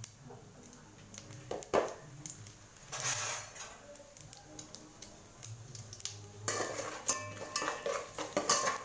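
A spatula scraping and clinking against a metal pot while stirring mustard seeds, cumin and lentils frying in oil for a tempering. Scattered clicks at first, then steady scraping and clinking from about two-thirds of the way in.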